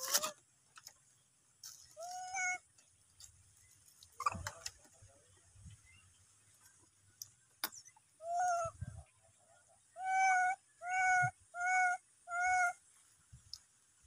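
Young macaques giving short, high, cat-like coo calls: one alone, then another, then four in quick succession near the end, with a few faint knocks between them.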